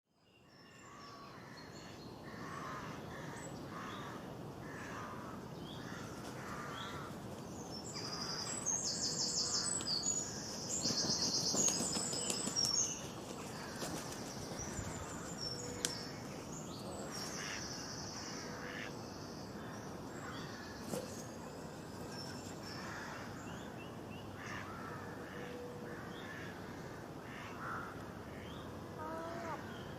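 Many birds calling and chirping together, with short repeated notes and cawing calls, busiest and loudest about a third of the way in, over a steady outdoor background hiss.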